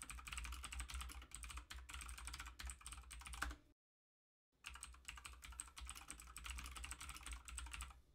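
Typing on a computer keyboard: a quick run of keystroke clicks over a steady low hum. The sound drops out completely for under a second a little before halfway, then the typing resumes.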